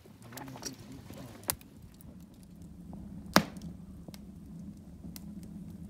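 Wood and charcoal fire crackling, with scattered sharp pops; the loudest pop comes about three and a half seconds in.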